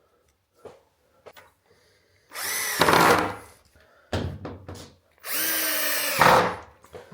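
Power drill running in three short bursts: two runs of a little over a second each with a shorter one between them. Each run is a steady whine that gets louder near its end.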